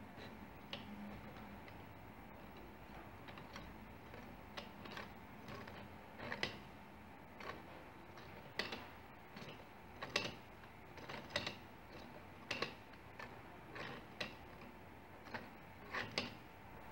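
3D-printed plastic mechanical counter being turned by hand: its gears and digit wheels give irregular sharp plastic clicks as the digits advance. The clicks grow louder from about six seconds in, roughly one strong click a second with smaller ones between.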